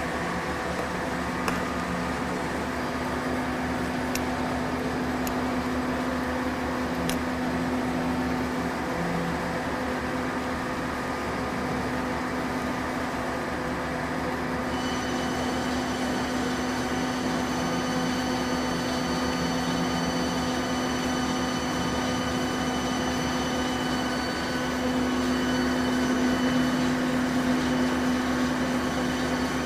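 ET Oakes stainless steel slurry mixer running, its 15 hp motor drive turning the mix blades with a steady electric hum and a strong low tone. A set of higher whining tones joins about halfway through, and the sound gets slightly louder near the end.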